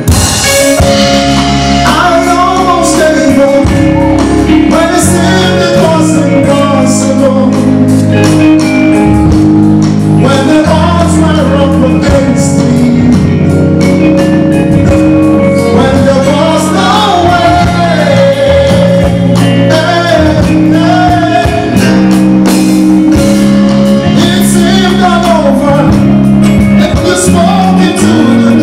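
Church praise-and-worship music: a singer's melody over a band with drums and a steady bass line, played loud and without a break.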